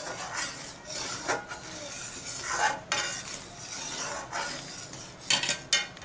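A spatula stirring milk-and-sugar syrup in a metal pan, scraping and swishing in repeated strokes, with a few sharper clicks near the end.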